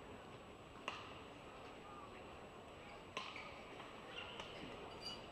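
Badminton rackets striking a shuttlecock in a rally: a sharp hit about a second in and another about three seconds in, then lighter taps, over a low murmur of the arena.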